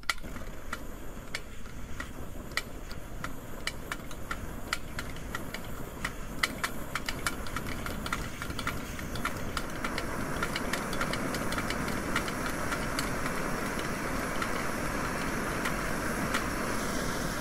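Vintage Primus Model 210 paraffin stove being pressurised with its hand pump: a run of sharp clicks from the pump strokes. About halfway through, the preheated burner catches and a steady rushing burner noise builds and holds.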